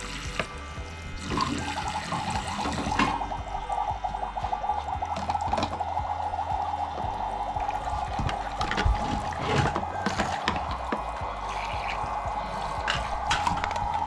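Water running from a faucet into a sink while dishes are washed, with a few light knocks.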